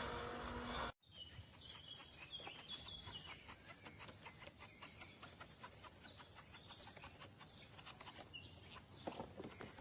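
Faint birds chirping outdoors: many short, quick notes that slide in pitch, over quiet background ambience. For the first second a steady machine hum runs, then cuts off abruptly.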